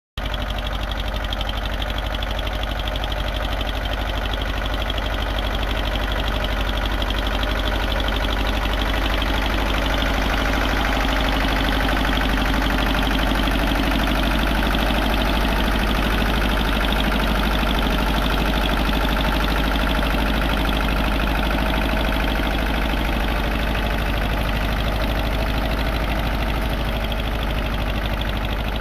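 TAFE tractor's diesel engine running steadily under load, pulling a potato planter.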